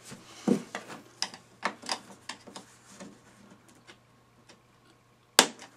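Thin-blade screwdriver prying metal spring clips off a Smart Forfour headlight's plastic housing: a run of small irregular clicks and scrapes, with one sharp click near the end, the loudest.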